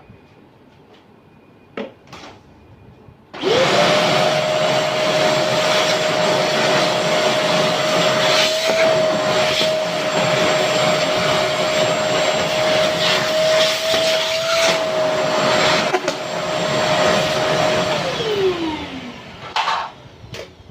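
Vacuum cleaner switched on about three seconds in, running steadily with a whining motor note for about fifteen seconds, then switched off, its whine falling as the motor spins down. A few clicks and knocks come just before it starts and just after it stops.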